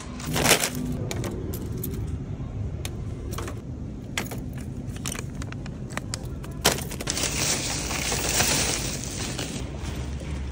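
Jangling and rattling from a shopping cart being pushed, with a run of sharp clicks and knocks, and a steadier hiss from about seven seconds in.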